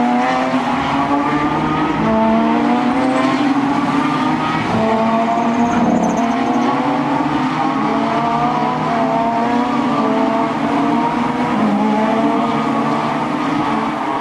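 Renault Mégane Trophy race cars' V6 engines accelerating hard past the track side. Each engine note climbs in pitch, drops at an upshift and climbs again, several times over. The notes of more than one car overlap.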